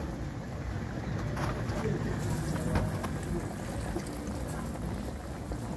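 Water pouring in a thin stream into a metal cooking pot onto chopped tomatoes, a steady splashing trickle.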